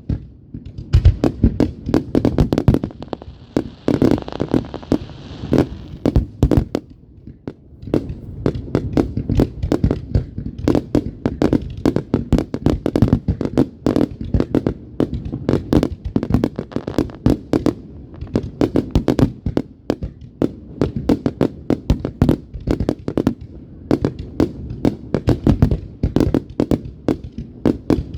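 Many fireworks going off in quick succession, a dense, unbroken barrage of bangs. A hiss joins in about three seconds in and lasts a few seconds.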